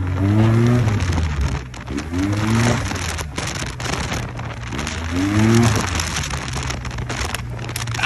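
Maxi-scooter engine running under way, rising in pitch three times as the throttle is opened. Wind buffets the microphone throughout.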